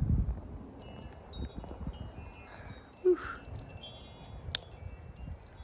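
Spiral wind chime ringing and tinkling with many overlapping high notes as storm gusts move it, over low wind rumble on the microphone. A brief louder sound comes about three seconds in.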